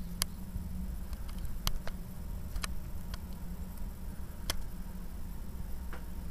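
About six faint, sharp clicks at irregular intervals over a steady low hum.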